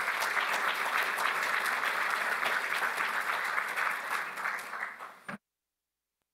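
A small audience applauding, the clapping thinning a little toward the end. It cuts off suddenly a little after five seconds in, leaving dead silence.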